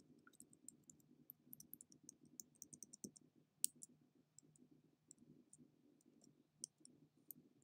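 Near silence with many faint, irregular small clicks from computer input while an image layer is nudged into place, thickest in the first three seconds, over a faint steady low hum.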